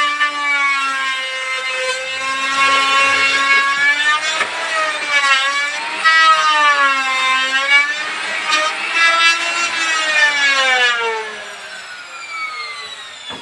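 A handheld electric power tool's motor running against wood, its pitch sagging and recovering as load changes; near the end the pitch falls as it winds down and stops.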